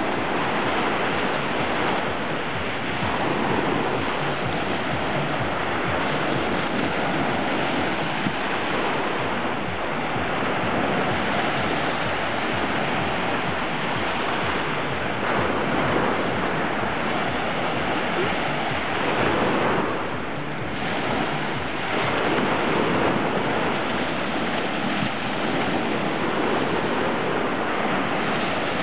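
Small Black Sea waves breaking and washing up a sandy beach: a steady wash of surf, with a brief lull about twenty seconds in.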